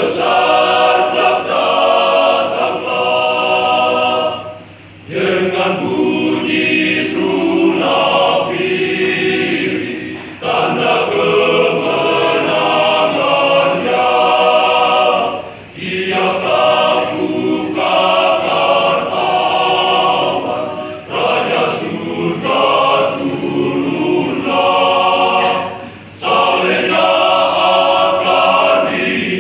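Men's church choir singing together in sustained phrases, broken by short pauses for breath about every five seconds.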